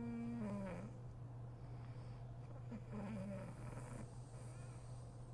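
A sleeping woman snoring: a snore with a steady pitch that drops and stops within the first second, then a shorter one about three seconds in, over a steady low hum.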